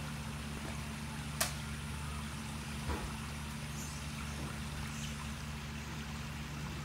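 Pool return jet splashing and trickling into the water as a steady hiss, over a steady low hum. A sharp click sounds about a second and a half in, and a softer knock about three seconds in.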